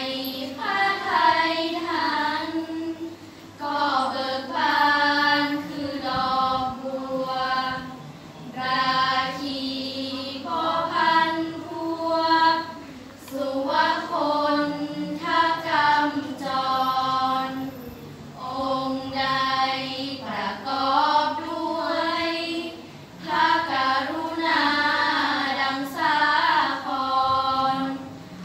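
Five girls chanting together in unison in the Thai sarabhanya melody, a sung Buddhist praise of the Triple Gem. It goes in phrases a few seconds long with short breaks for breath between.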